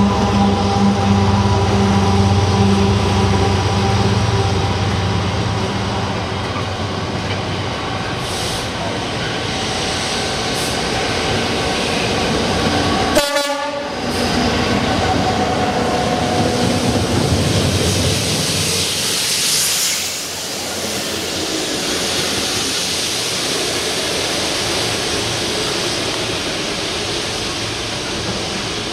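A pair of Class 66 diesel-electric locomotives (EMD two-stroke V12) passing close by under power at the head of a container freight train, sounding their horn. The long rake of container wagons then follows with a steady rumble and clatter of wheels on rail.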